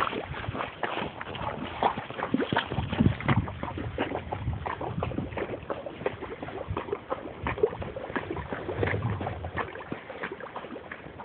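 Horse being ridden at a walk, heard from the saddle: irregular hoof falls and rustling on a leafy trail.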